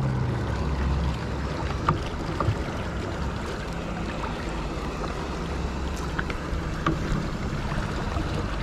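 Steady wind noise and water lapping at a small fishing boat, broken by a few light clicks and knocks. A low hum dies away in the first second.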